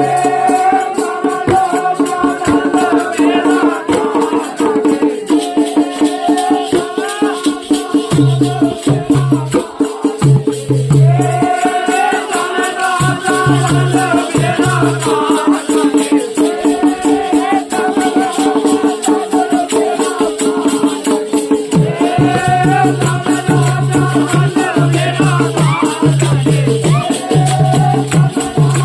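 Music: a song with a singing voice in phrases over a steady held drone, a fast even rattling beat and a low bass note that comes and goes.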